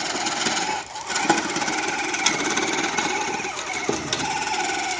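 Battery-powered ride-on toy ATVs running their electric motors and gearboxes with a steady whine, pulling against each other on a chain. The whine dips briefly about a second in, with a couple of sharp knocks.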